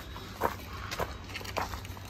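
Footsteps of a person walking on pavement, a step about every half second.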